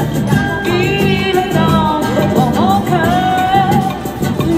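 Music with a singing voice: a gliding sung melody over a steady beat, the soundtrack of the projection show.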